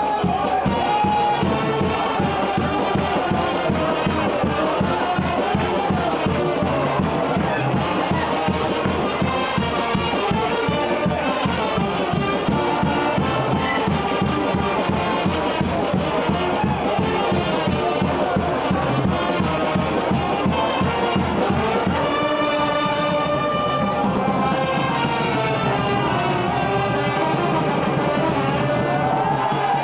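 Banda brass band playing festive music: trumpets and trombones over a steady drum beat. About two-thirds of the way through, the drums drop out and held brass notes remain.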